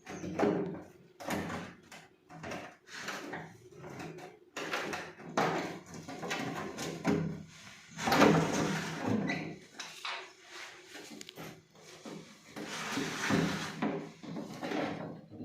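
Plastic housing and parts of an RO water purifier being handled during repair: irregular clicks and knocks with longer sliding scrapes, the loudest a little past the middle.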